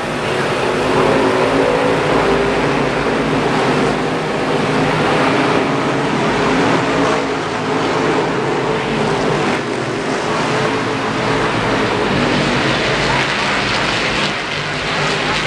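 NASCAR Modified race car V8 engine running steadily at idle, loud and close, with no revving.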